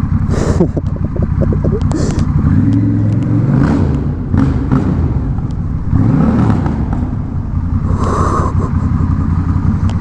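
Honda Rebel 1100's 1084 cc parallel-twin engine running with the muffler removed, so the bare exhaust is very loud. The revs rise and fall a few times.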